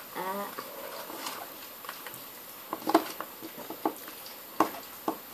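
Scattered small clicks and taps of a precision screwdriver and phone parts being handled on a wooden work table, irregular and a second or so apart, during a smartphone teardown.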